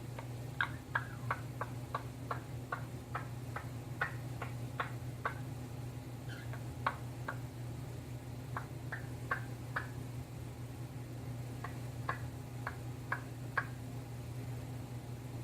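Orange-winged Amazon parrot making short, sharp clicks in runs of about three a second, pausing a few times between runs. A steady low hum runs underneath.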